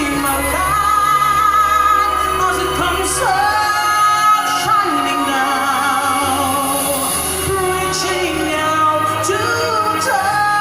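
A pop song with a female lead voice singing over a steady bass line.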